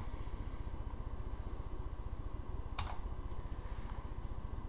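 A single computer keyboard keystroke about three seconds in, over a faint steady low hum.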